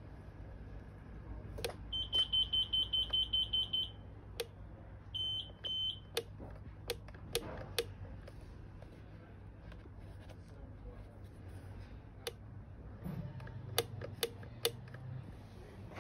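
Pride Go Go Elite mobility scooter's electronic beeper sounding a rapid run of high beeps, about seven a second for two seconds, then a shorter run: the warning that the scooter will not drive even though the battery gauge reads half charged. Sharp clicks are scattered through the rest.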